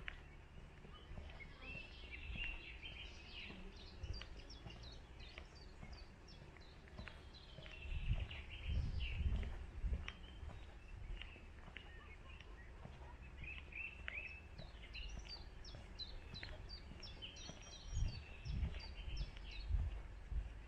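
Several small birds chirping and trilling in short quick phrases, busiest near the end. A low rumble comes twice, about eight seconds in and again near the end, louder than the birds.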